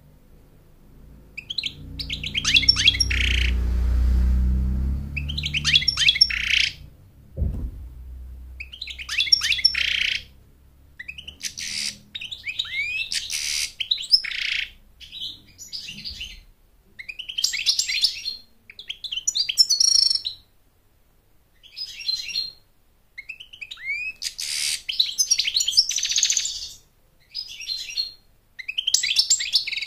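European goldfinch singing: fast, tinkling twittering phrases of one to two seconds, full of quick up-slurred notes, repeated about a dozen times with short pauses between. Under the first few phrases there is a low rumble, ending in a thump at about seven and a half seconds.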